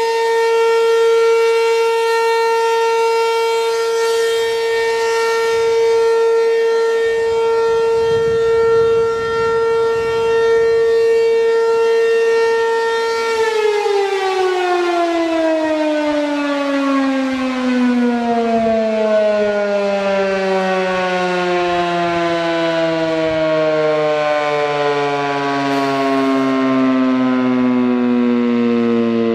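American Signal RM-127 outdoor warning siren sounding its steady alert tone. About halfway through, the siren winds down and the pitch falls in one long, smooth glide as the alert signal ends.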